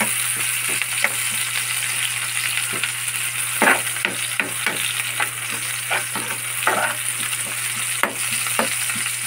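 Garlic and onions sizzling in hot oil in a frying pan, with a metal spoon scraping against the pan as it stirs them. There are a few louder scrapes partway through.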